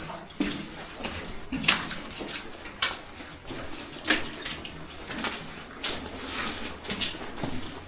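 Footsteps crunching over loose slate and rubble in an underground mine passage, uneven steps about one or two a second.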